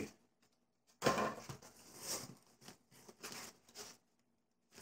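Cardboard box flaps and crumpled newspaper packing being handled and rustled as a shipping box is opened, in several short bursts that start about a second in.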